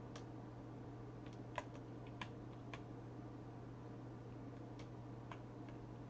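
Computer keyboard keys clicking irregularly, a cluster of faint key presses in the first three seconds and a few more near the end, over a steady low hum.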